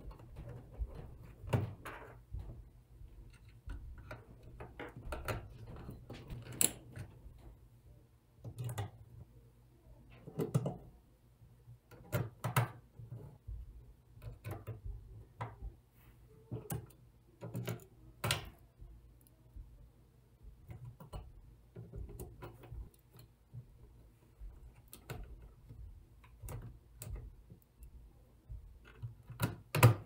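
Irregular clicks, taps and light knocks of a small screwdriver, screws and a thin client's metal shield and plastic case being handled during disassembly, with a sharper clack near the end, over a faint steady low hum.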